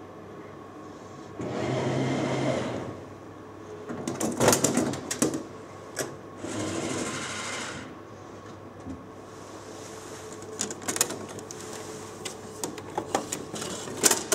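Glass-front drinks vending machine dispensing a bottle: its motor whirs for about a second, a rattling clatter follows, the motor whirs again, then a string of clicks and knocks ends in a loud knock as the bottle is taken from the delivery port flap.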